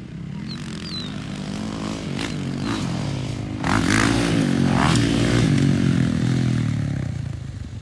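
Dirt bike engines on a motocross track, revving up and dropping back as riders ride laps and take jumps, growing louder about three and a half seconds in as a bike comes closer.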